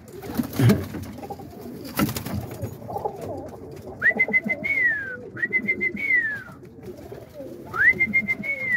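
Roller pigeons cooing steadily in the loft, with a couple of knocks near the start. From about halfway, three identical high whistle-like calls follow about a second apart, each rising, holding, then gliding down.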